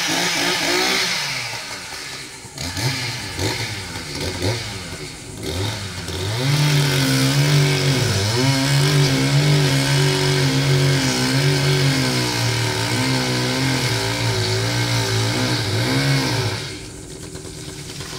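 Two-stroke chainsaw run at high throttle, its engine pitch sagging and recovering as it works through the wood, then easing off sharply near the end.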